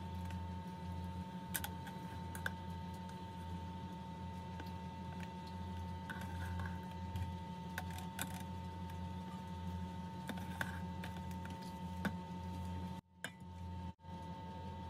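A metal turner and spoon clink and tap now and then against a metal cooking pot of chicken in coconut milk. A steady low hum with a faint high tone runs underneath. The sound cuts out briefly twice near the end.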